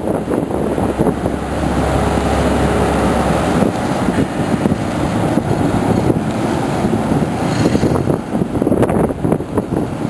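Wind buffeting the microphone, over the low rumble of an L-CAT landing catamaran manoeuvring close by. A steady low hum from the vessel's machinery comes through for a couple of seconds near the start.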